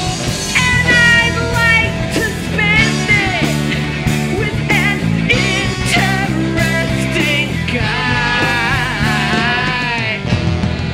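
A live rock band plays: drums, bass and electric guitar carry on under a wavering lead melody with vibrato.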